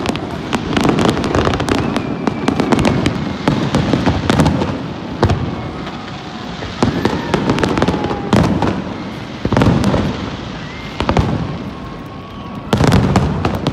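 Aerial fireworks shells bursting in quick succession, a steady run of bangs and crackle with a heavy volley of bangs near the end.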